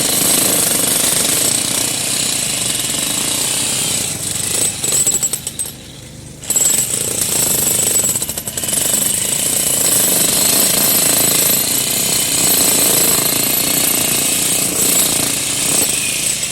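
Jackhammer hammering continuously, with a few brief stutters and a pause of about a second roughly six seconds in before it starts again.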